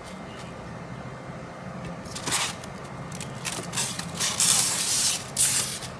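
A styrofoam block being handled and rubbed by hand, giving a series of irregular scraping, crunching noises from about two seconds in, loudest near the end, over a faint steady low hum.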